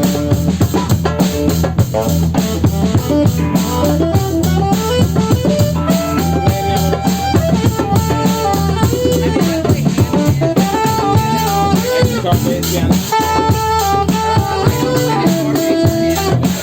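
Live psychedelic jam-band music: a drum kit keeps a steady beat under a running melodic lead line and a sustained bass.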